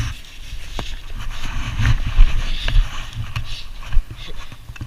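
Wind buffeting the microphone in uneven gusts, with a few sharp clicks.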